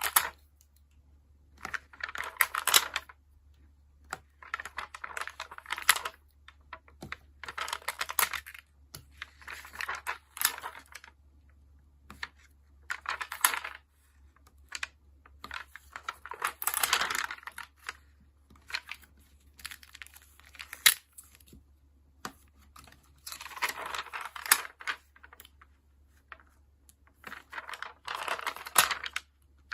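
Sticker-journaling handling sounds: stickers peeled from their backing sheets and pressed onto a paper journal page, in crackly, clicky bursts of a second or two separated by short pauses.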